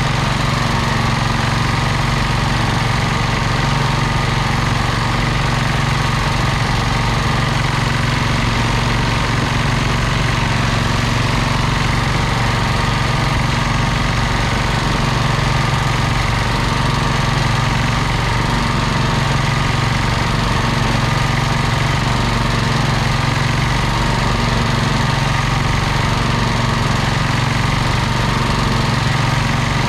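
Simplicity 2010 garden tractor's engine running steadily under load as it pulls a cultivator through the corn rows, heard close up from the tractor itself.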